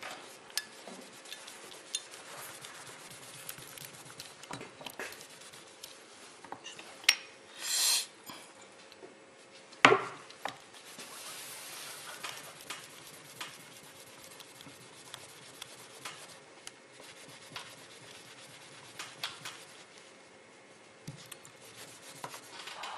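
A cloth rubbing and wiping a small cured GM-8300 metal-putty sample against paper on a tabletop, polishing it to bring out a metallic, aluminium-like shine. Low, scratchy rustling runs throughout with scattered light clicks, a short loud scrape about 8 seconds in and a sharp knock about 10 seconds in.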